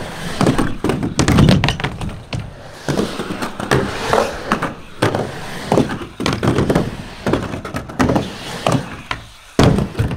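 Skateboard rolling and carving inside a hollow waterslide pipe: wheels rumbling on the curved wall, with repeated irregular thunks and knocks of the board against the surface. A loud hit comes near the end as the skater comes down with a hand on the wall.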